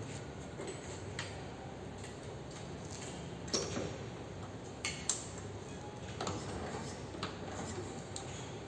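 A few separate sharp metallic clicks and knocks from handling a Royal Enfield Bullet motorcycle as it is mounted, with no engine running.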